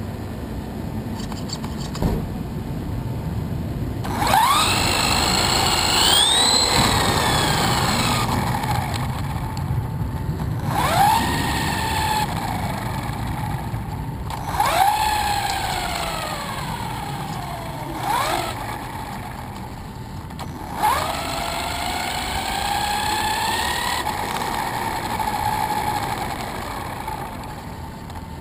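High-pitched whine of the RC buggy's 4600kV four-pole brushless motor. It climbs sharply each time the throttle is punched and falls away as the car coasts, about four times, over the rumble of the tyres on concrete.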